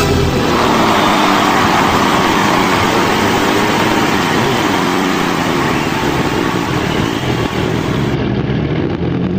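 Sport motorcycle engine running under way, heard from a camera on the bike, with steady wind rush over the microphone.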